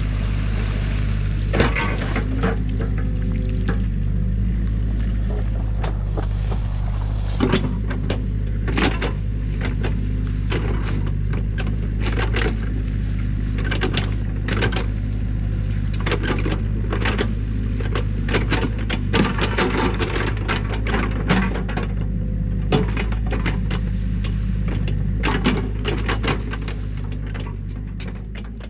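Compact excavator's diesel engine running with a steady low hum, under frequent sharp clanks and knocks of the machine at work. The sound fades out near the end.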